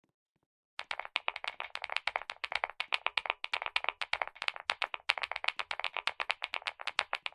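Keyboard keys being typed on fast, a dense run of crisp clacks, about ten a second, starting about a second in.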